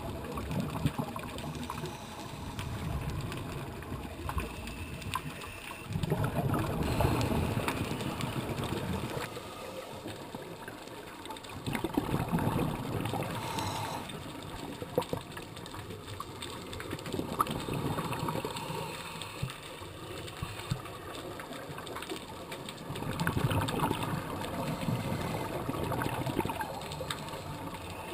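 Scuba regulator breathing underwater: a steady hiss, with a swell of exhaled bubbles rumbling out about every five or six seconds.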